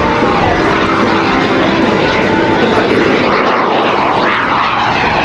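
Super Salto jet sailplane's small jet engine running in flight, a steady rushing jet noise that swells louder about two to four seconds in and eases near the end.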